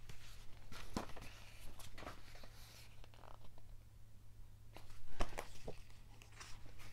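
Pages of a large softbound book being turned and handled: scattered paper rustles and light taps, the loudest about five seconds in.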